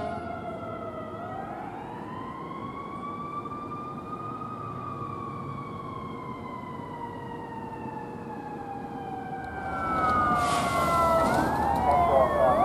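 Emergency vehicle siren on a slow wail, rising for a few seconds and falling slowly. About ten seconds in it gets louder, with faster sweeping siren tones and a rush of road noise as the vehicle comes close.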